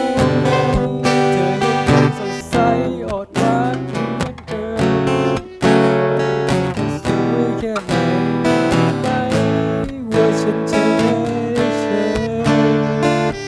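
Background music: an instrumental passage of a pop love song, led by acoustic guitar.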